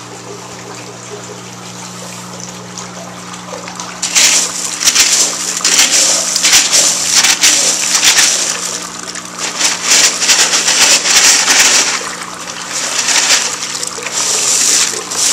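Water trickling and splashing among wet expanded clay pebbles in an aquaponics grow bed, with hands digging through the pebbles. It gets much louder and comes in irregular surges from about four seconds in, over a low steady hum.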